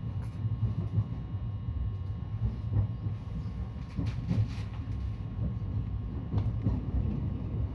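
Cabin noise of a JR West 223 series electric multiple-unit train under way: a steady low rumble of wheels on rail, with scattered clicks.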